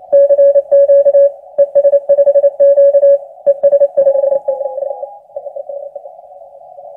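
Morse code (CW) received on an Icom IC-751A HF transceiver through its narrow CW filter: a loud keyed tone near 600 Hz over band hiss held to a narrow pitch range. The strong signal keys for about four seconds, weaker keying follows, and near the end only the hiss remains.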